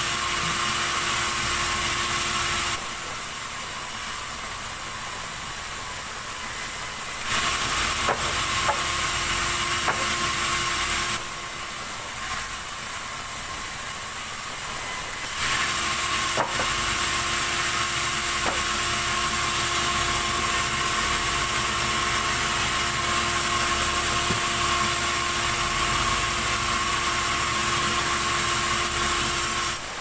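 Sawmill saw cutting very hard keranji wood into boards: a steady, loud sawing noise that falls back twice to the quieter sound of the saw running free, about three seconds in and again about eleven seconds in. A few sharp knocks of timber are heard in between.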